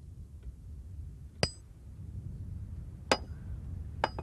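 Three ringing metal-on-metal hammer strikes on railway track hardware, spaced irregularly a second or more apart: track workers re-spiking and levelling the line.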